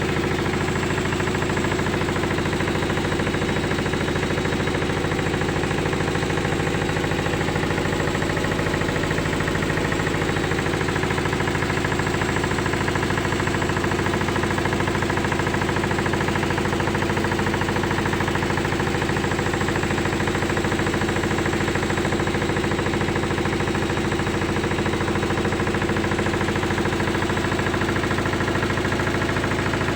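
Candy GCY1042D washing machine on its spin cycle: the drum spinning at a steady speed, with a steady motor hum and rumble.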